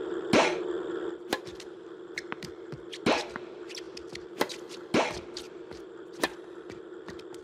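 Tennis ball machine running with a steady hum and firing balls with a loud pop about every two seconds. The balls are struck with a tennis racket and bounce on the court, giving lighter ticks between the pops.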